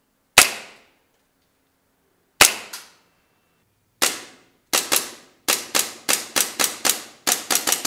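Gas blowback airsoft pistol, a Hi-Capa-based race gun, firing: a few single shots spaced well apart, then from about halfway in, quick strings of shots at about five a second, each a sharp crack.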